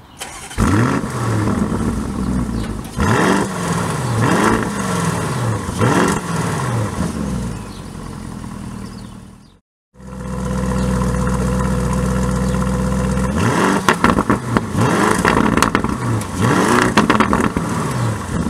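Lamborghini Urus twin-turbo V8 revved in place, first in the standard exhaust mode: about four quick blips that rise and fall, then idling. After a brief cut it idles with a heavier low rumble in Corsa exhaust mode and is revved several more times, with sharp crackles as the revs drop.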